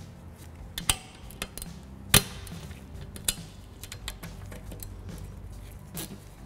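Hand ratchet and socket clicking and clinking in short, irregular strokes as small nuts are snugged down onto studs on a fuel tank filler neck; the sharpest click comes about two seconds in.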